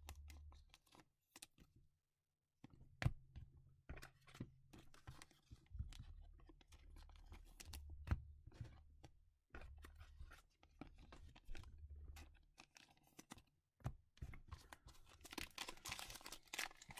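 Faint clicks and rustles of trading cards being handled, then denser crinkling of a foil card pack being torn open near the end.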